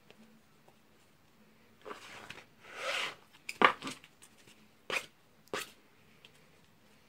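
A deck of playing cards handled on a hard surface: a couple of brushing rustles of cards sliding, then a few sharp snaps and taps as the cards are squared.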